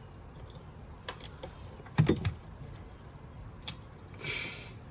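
A few scattered knocks and clinks of hand work, the loudest a heavy knock about two seconds in, with a short scraping sound near the end.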